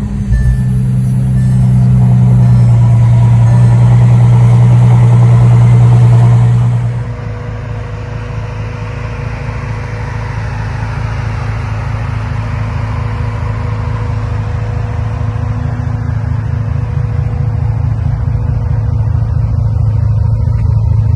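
Bentley Continental GT Speed's 6.0-litre twin-turbo W12 running steadily, just after start-up. About seven seconds in it drops to a quieter, lower-pitched-sounding idle that slowly builds in loudness again.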